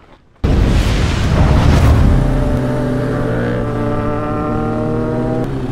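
Suzuki GSX-R1000 sport bike's inline-four engine pulling under acceleration, with heavy wind rush on a helmet camera; it starts abruptly about half a second in, and the engine note climbs, then holds steady with a brief dip near the end.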